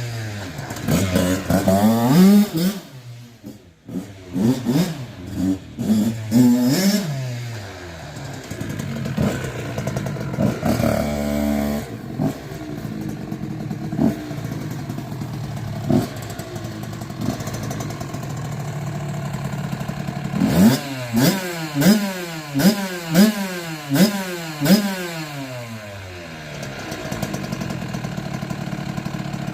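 2002 Kawasaki KX65's 65cc two-stroke single-cylinder engine, freshly rebuilt and warm, being revved up and down, with steadier running in the middle and a run of about six quick throttle blips near the end.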